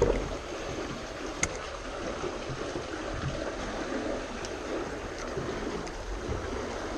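Steady rushing of water at the base of the lock gates. A single sharp click about a second and a half in.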